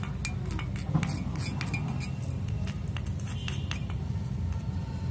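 Metal kitchen utensils clinking and tapping: a quick run of light strikes, thinning out after about three and a half seconds, over a steady low rumble.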